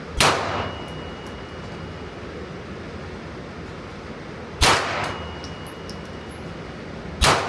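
Three gunshots, the second about four and a half seconds after the first and the third about two and a half seconds later, each followed by a short decaying echo and a faint high ringing tone.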